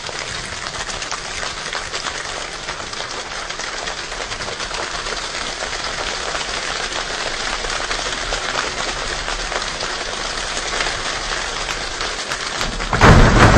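A large choir imitating a rainstorm with body percussion: a dense patter of small clicks and claps that slowly grows, then swells suddenly into a much louder, deeper downpour near the end.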